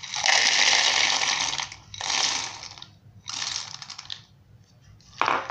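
Roasted, skinned peanuts poured from a bowl into the plastic bowl of a small electric food chopper, rattling and clattering against the plastic: one long pour of about two seconds, then several shorter ones.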